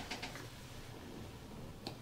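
Quiet massage handling: a few faint soft taps just after the start and one sharp click near the end over a low room background.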